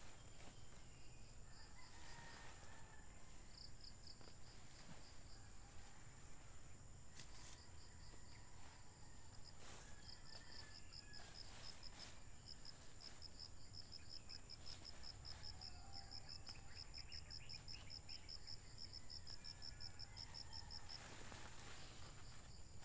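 Faint rural ambience: a rooster crowing in the distance and an insect calling in a fast, even pulsing series, with a few sharp chops of a hand tool cutting weeds.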